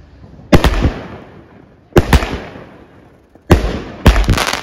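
A 200-gram, 9-shot consumer firework cake called T-Rex firing its shots: four sharp bangs in about four seconds, the last two close together, each trailing off in echo. The last bang is followed by a quick run of crackling cracks.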